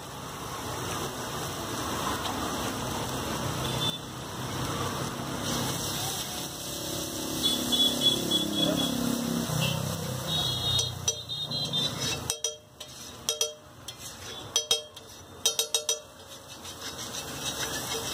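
Egg and onion mixture sizzling on a hot flat iron griddle while a steel spatula scrapes and chops through it. In the second half, the spatula's edge strikes the griddle in a run of sharp metallic clacks. Street traffic can be heard in the background.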